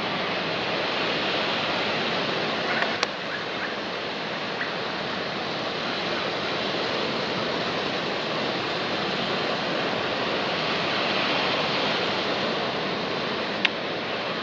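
Water pouring through a dam spillway: a steady, even rush of whitewater. Two brief clicks, about three seconds in and near the end.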